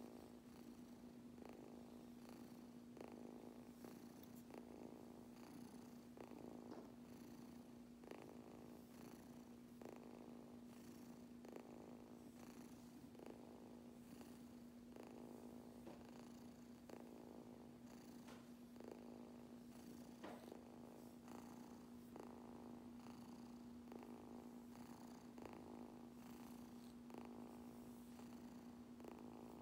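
Persian kitten purring quietly and continuously, a contented purr as it is brushed.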